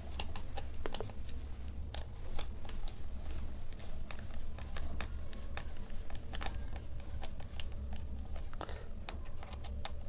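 Screwdriver turning out the small screws of a coffee-machine gear motor's housing: scattered light clicks and scrapes of the bit in the screw heads.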